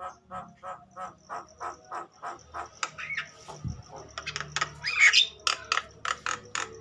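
Javan myna calling excitedly: a rapid series of short harsh notes, about three a second, then louder, varied squawks in the second half, the agitated calling of a bird in full display.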